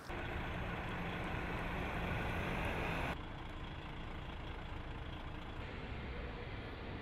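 Steady outdoor vehicle noise, with a heavy lorry's engine running at low revs. About three seconds in it drops to a quieter, duller rumble.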